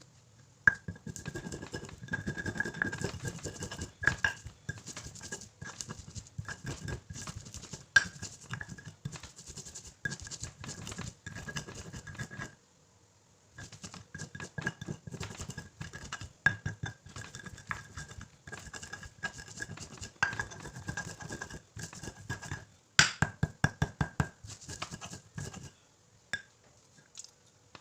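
Spices being pounded in a mortar with a pestle: rapid, uneven knocking strokes that pause for about a second midway, then go on and stop near the end.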